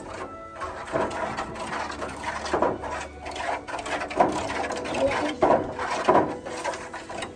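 Wooden stick stirring and scraping in a disposable aluminium foil pan of crystal-growing solution, in irregular rasping strokes that come every second or so.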